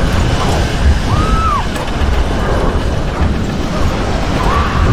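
Film sound mix of loud rushing wind and a heavy low rumble as an ejection seat falls through the air, with a few short rising-and-falling whistling tones over it.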